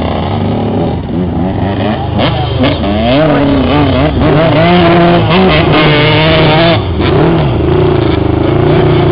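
Small engine of a racing Piaggio Ape revving hard, its pitch rising and falling again and again as it is driven around the track.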